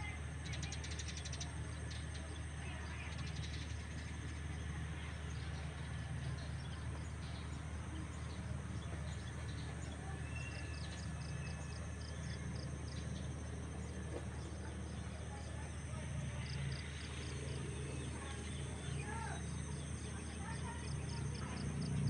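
Outdoor ambience: birds chirping and a rapid, evenly pulsing high chirp over a steady low rumble.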